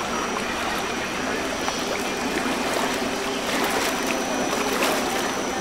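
Steady rushing and lapping of river water, with a thin, high, steady tone running over it.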